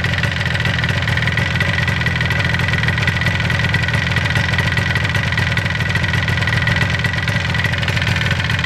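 1977 Yamaha RD400's two-stroke twin idling steadily while the carburetor's air screw is turned out further to set the idle mixture.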